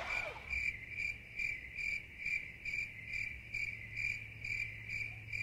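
A cricket chirping in a steady rhythm, a little over two chirps a second, over a faint steady low hum.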